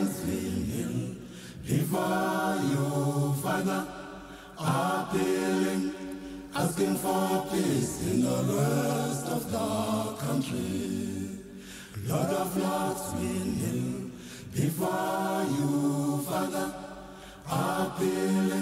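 An unaccompanied choir singing in harmony, in short phrases of a few seconds with brief pauses between them.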